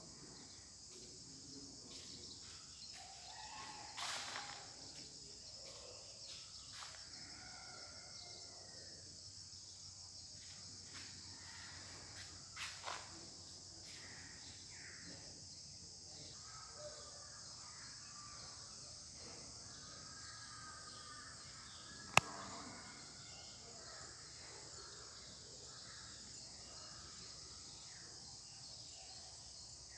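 Faint steady high insect drone with scattered faint bird calls. A few soft knocks come early and midway, and one sharp click about three quarters of the way through is the loudest sound.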